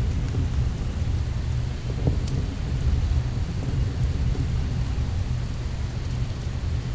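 Dark ambient soundtrack made of a steady, deep rumble like distant thunder, with a few faint clicks over it.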